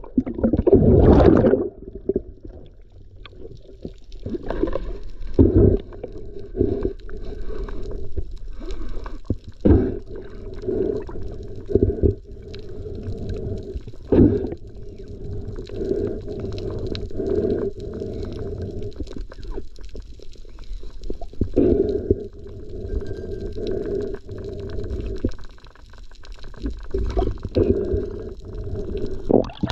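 Muffled underwater sound picked up through an action camera's waterproof housing as a spearfisher dives: a rush of water as he goes under, then a hollow, muffled wash of water movement with irregular knocks.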